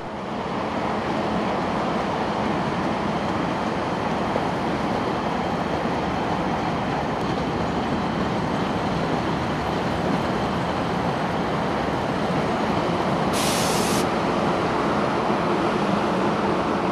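A train of ore cars on a 42-inch-gauge mine railroad rolling past steadily on the rails. About thirteen seconds in there is a brief high hiss.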